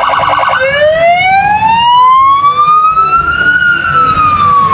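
Police car siren: a fast pulsing yelp that switches, about half a second in, to a slow wail rising in pitch for about three seconds and then starting to fall.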